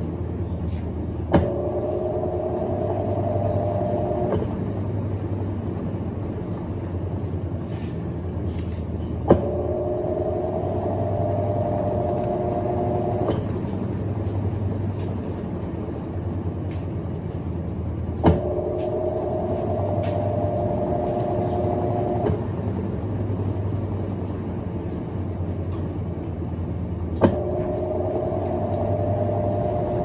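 Colormaq LCA12 top-loading washing machine turning its basket. Four times, about nine seconds apart, there is a sharp click followed by a slightly rising motor whine lasting three to four seconds, over a steady low hum.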